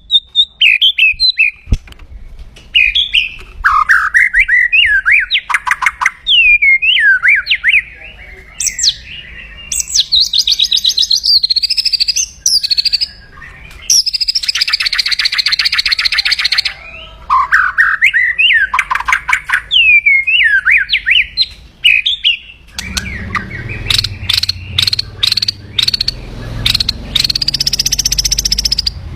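White-rumped shama (murai batu) singing aggressively: loud whistled notes that swoop up and down, broken by fast, harsh rattling trills, the 'kretekan' call used to rouse rival birds. A low background rumble comes in near the end.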